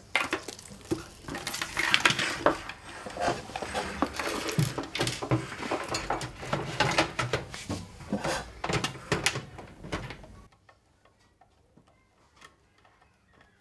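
Irregular clicks, knocks and rustling of a computer power supply and its bundled cables being handled and fitted into a PC case. About ten seconds in it falls to near silence, with a few faint ticks.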